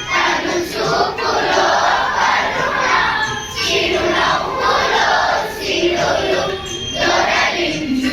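A large group of school children singing together in unison, in phrases with short held notes.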